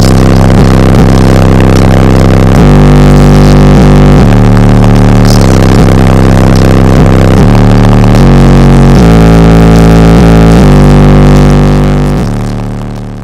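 Bass-heavy music played very loud through a car audio system's four 15-inch subwoofers. Deep bass notes are held for a second or two each before changing pitch, and the music fades out near the end.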